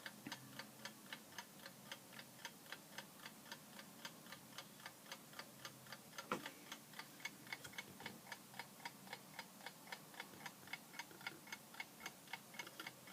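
Faint, even ticking of a 1950s Equity mechanical wind-up alarm clock's movement, about five ticks a second. One louder knock comes about six seconds in.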